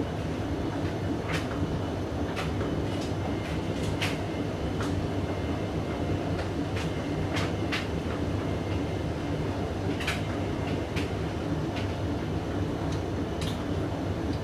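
Hoover DYN9144D3X front-loading washing machine turning its drum with a blanket load in the anti-crease tumble between spin attempts. A steady motor and drum rumble with scattered sharp clicks and knocks.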